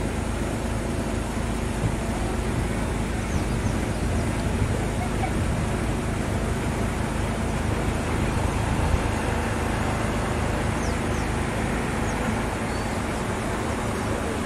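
Steady low rumbling noise, with a few faint, short high chirps.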